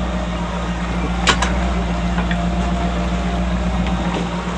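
Fishing boat's engine running steadily while trolling, a constant low drone with wash of water and wind; a single sharp click about a second in.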